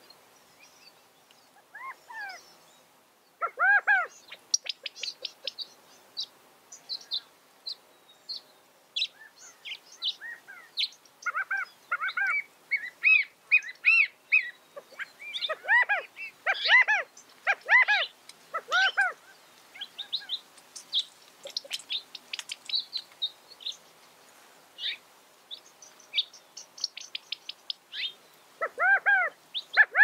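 California quail calling: short, arched call notes in quick clusters, the loudest about four seconds in, through the middle, and again just before the end, with many quick high chips in between.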